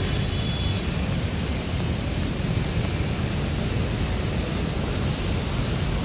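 Steady hiss of rain falling on wet pavement, with a low rumble underneath.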